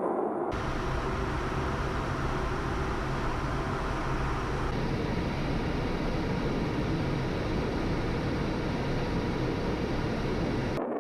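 Tu-22M3 bomber's jet engines running with a steady, dense noise, the sound changing abruptly about half a second in, again around the middle, and just before the end as shots are cut together.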